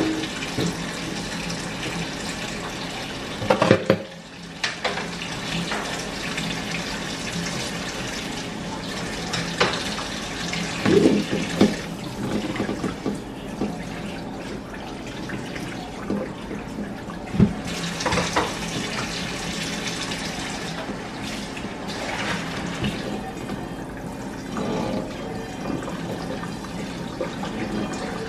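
Kitchen faucet water running steadily into a stainless steel sink, later sprayed from the pull-out sprayer onto a frying pan being rinsed. A few short clanks of cookware against the sink, loudest about four seconds in and around eleven to twelve seconds in.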